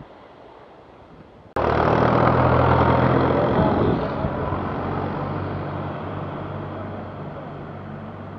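Tractor engine running as it passes close by towing a loaded trailer, starting abruptly about a second and a half in, loudest over the next two seconds, then slowly fading as it pulls away.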